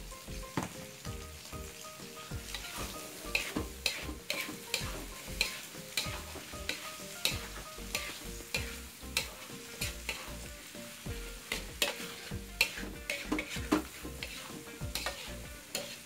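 A metal spatula scraping and knocking against a wok while chopped mustard greens are stir-fried, with sizzling underneath. The scrapes come about two a second.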